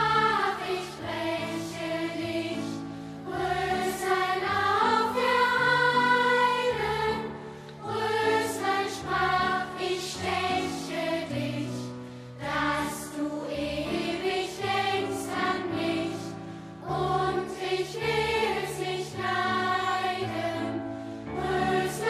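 Background music: a choir singing a song with instrumental accompaniment, the sung phrases rising and falling over steady bass notes.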